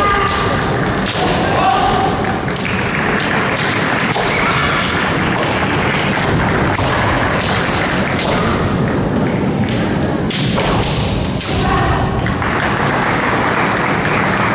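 Kendo bout: bamboo shinai clacking and striking, feet stamping on a wooden floor, and short shouted kiai over the steady noise of a busy hall. The knocks come irregularly and are thickest around ten to twelve seconds in.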